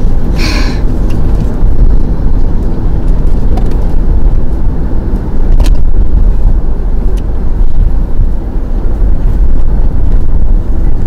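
Steady low rumble inside a car's cabin, with a brief rustle about half a second in and a single click near six seconds.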